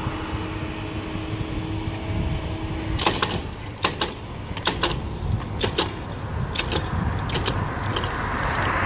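Level-crossing barrier drive hums steadily as the red-and-white boom lowers, stopping with a clank about three seconds in. After that the metal grille hanging under the boom clinks and rattles a dozen times as it swings and settles. Near the end a rising rush of the approaching train builds.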